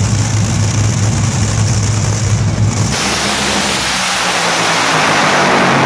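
Two Top Fuel dragsters' supercharged, nitromethane-burning Hemi V8s idle at the starting line with a steady low note. About three seconds in they launch at full throttle together, and the sound turns suddenly into a very loud, harsh, crackling blast.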